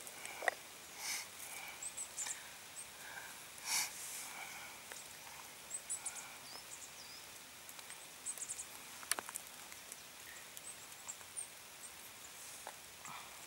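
Small fire of knife-cut wood shavings, with soft rustling and a few sharp crackles as more shavings are fed in by hand. Faint high chirps sound now and then.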